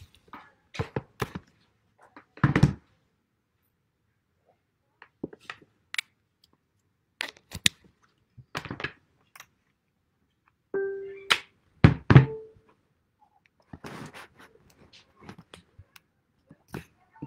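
Scattered knocks and thumps from the recording device being handled and set in place, its microphone picking up each bump; the loudest come about two and a half seconds in and about twelve seconds in.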